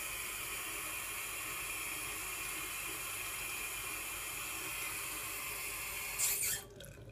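Bathroom sink faucet running in a thin stream, a steady hiss of water falling into the basin. About six seconds in there is a brief louder rush, then the flow stops.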